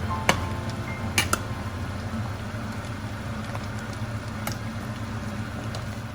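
A pot of chicken tinola (ginger chicken soup) bubbling at a simmer, a steady hissing bubble. A few sharp clinks sound against it, three in the first second and a half and one more later.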